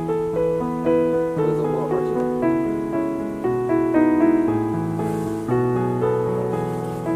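Background piano music: a slow melody of struck notes over lower held notes, each note starting sharply and fading.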